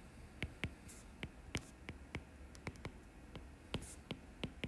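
Stylus tapping and clicking on a tablet's glass screen during handwriting: faint, irregular light clicks, several a second, over a low steady hum.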